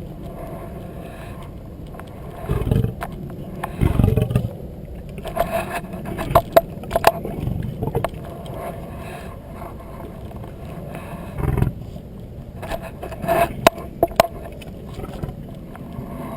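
Male lion working at an ice-cream treat on a stick: scraping, with a few sharp knocks and several short, low, loud rumbles.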